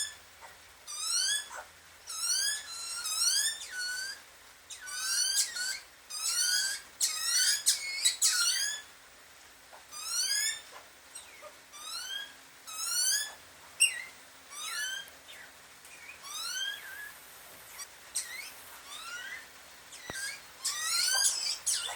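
Birds calling with short, squeaky notes that rise in pitch, some alone and some in quick runs of several, repeating throughout.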